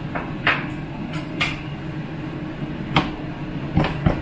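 Several short, sharp kitchen clicks and ticks, spaced irregularly, over a steady low hum.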